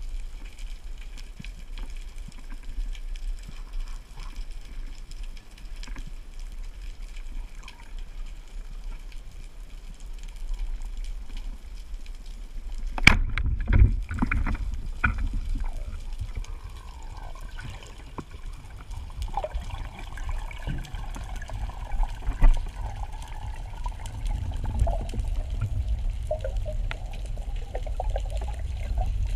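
Underwater sea noise with faint scattered clicks, then a sharp crack about 13 seconds in, the shot of a Pathos speargun. After the shot comes low rumbling water noise with scraping and knocking as the spear sits in the rock and the diver moves.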